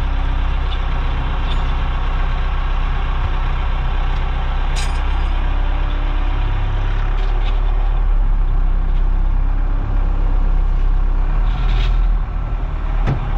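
Cat wheel loader's diesel engine running steadily at idle, heard from inside the cab, with a few short clanks over it.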